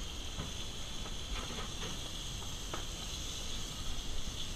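Steady high-pitched hiss and whine of commercial-kitchen background noise, with a few faint clinks in the middle and one sharper tick about three seconds in.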